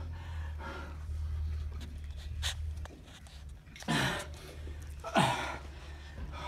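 A winded man breathing hard and panting, with two loud gasping breaths about four and five seconds in, over a low steady hum.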